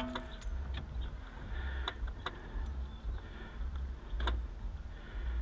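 Scattered light clicks and taps from wiring connectors being handled and pushed together, about seven in all, over a low steady rumble.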